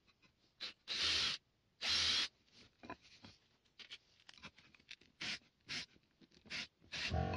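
Cordless drill boring into a wooden board in two short bursts of about half a second each, a second apart, followed by a few briefer, quieter bursts and light knocks as the wood is handled.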